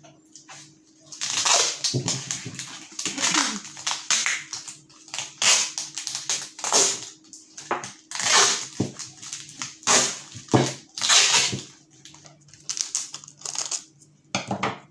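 Thin plastic bag crinkling as its neck is twisted shut, with packing tape being pulled off the roll and wound around the twisted neck in repeated rasping bursts.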